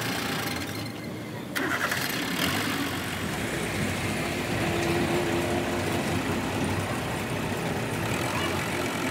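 Machinery running with a steady mechanical noise and a low hum. It dips briefly about a second in, then carries on steadily.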